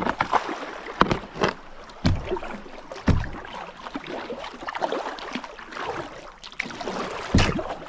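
Kayak paddle strokes splashing at an uneven pace against a stream's current, with water rushing past.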